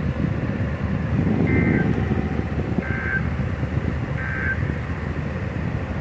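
Three short bursts of buzzy two-pitch digital data tones from a Midland WR-120 NOAA weather radio's speaker, roughly a second and a half apart. These are the SAME end-of-message code that closes the severe thunderstorm warning broadcast. A steady low rumble of background noise runs underneath.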